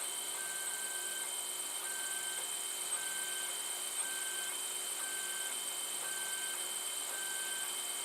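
Protomaker FDM 3D printer running a print: a steady whirring hiss with a high steady whine, and the stepper motors sounding short tones that come and go about once a second as the head moves.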